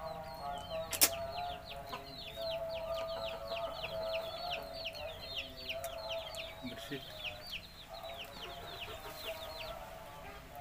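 Chicks peeping: rapid short high chirps, each falling in pitch, many a second, stopping near the end, over a steady lower tone. A single sharp click about a second in.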